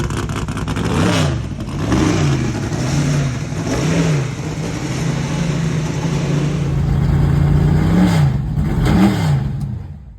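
The V8 of a 1976 Corvette IMSA GTO race car idles loudly, and the throttle is blipped in about five short revs. It then dies away near the end as the engine stops.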